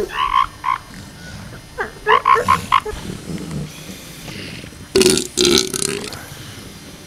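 Northern elephant seals calling: three bouts of throaty, pulsed calls, the first at the start, a rapid run of pulses around two seconds in, and the loudest about five seconds in.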